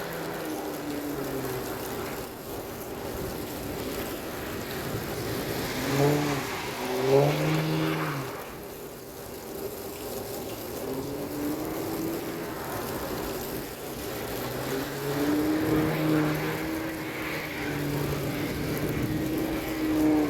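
Infiniti Q50's engine revving and accelerating, its pitch rising and falling in repeated pulls, loudest about six to eight seconds in and again near the end.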